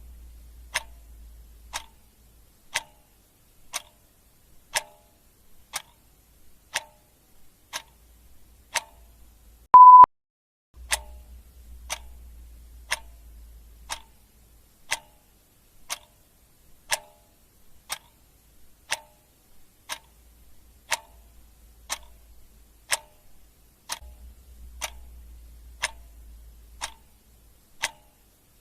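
Clock ticking steadily, about one tick a second. A single short, high beep sounds about ten seconds in.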